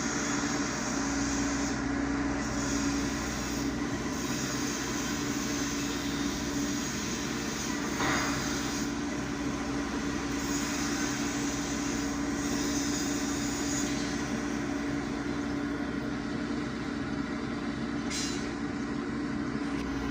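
Volvo EC210D hydraulic excavator running steadily, its diesel engine and hydraulics giving a constant hum.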